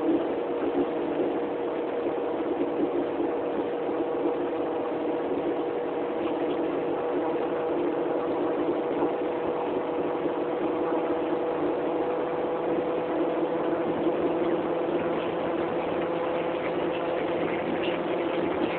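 Honda Civic running steadily with an even, unchanging drone: the noise its owner calls horrible, which points to a fault he does not name.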